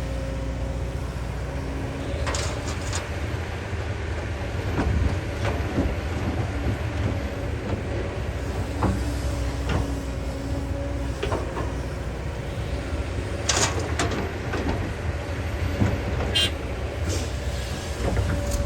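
Kobelco excavator working: its diesel engine runs steadily with a low rumble and a steady whine, while scattered sharp knocks and clanks come from the bucket digging, loudest about two thirds of the way through.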